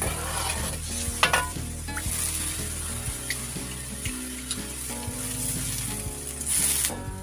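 Beef broth simmering in an aluminium wok with a steady sizzling hiss, while a metal ladle clinks against the pan as the froth of impurities is skimmed off. A few sharp clinks come about a second in, and there is a brief louder rush near the end.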